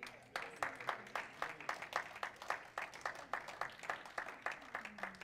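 Congregation clapping in applause: a light run of separate hand claps, about five or six a second, stopping near the end.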